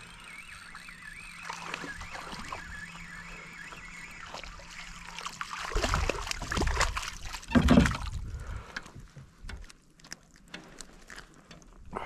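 A hooked fish thrashing and splashing at the water's surface beside a kayak as it is reeled in, loudest in a few heavy splashes about six to eight seconds in.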